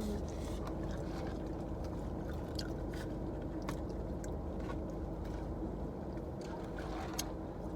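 Chewing french fries with small wet mouth clicks and smacks, over the steady hum of a car cabin.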